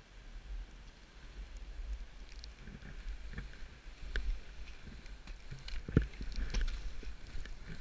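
Skis sliding and scraping over packed snow on a downhill run, with a steady low wind rumble on the microphone. Several sharp knocks come from about four seconds in, the loudest near six seconds.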